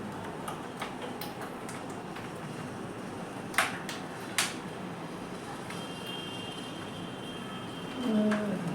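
Steady background noise with two sharp clicks less than a second apart about halfway through, a faint high tone, and a short voice-like sound near the end.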